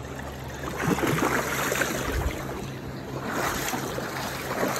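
A hooked salmon thrashing at the surface of shallow river water, splashing in a few surges.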